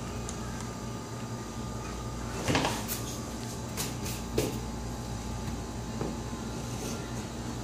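Crayons rattling and knocking in a cardboard crayon box as it is handled on a tabletop. A cluster of clicks comes about two and a half seconds in and a few more follow over the next two seconds, with one faint knock near the end.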